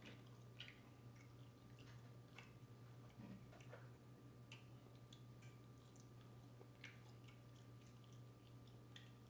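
Faint chewing and mouth clicks of a person eating french fries: scattered, irregular small clicks over a steady low hum.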